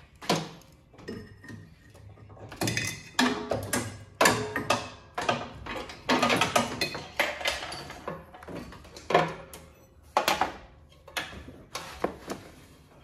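Irregular metal knocks and clanks, some with a short ring, from the new PTO engagement cable and its coil spring being worked into the lawn tractor's body by hand.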